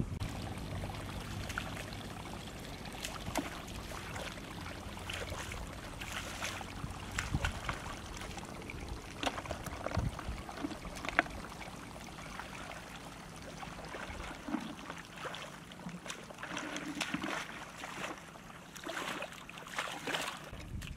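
Water splashing and trickling, with many small irregular splashes and knocks.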